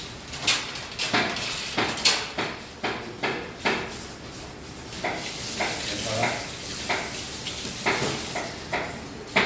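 Kitchen clatter: irregular clinks and knocks of metal dishes and utensils, several a second, some ringing briefly.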